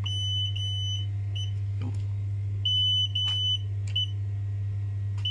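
Xiaomi M365 electric scooter beeping its error 21 code: two long beeps and one short beep, repeated about every two and a half seconds, a battery communication error. A steady low hum runs underneath.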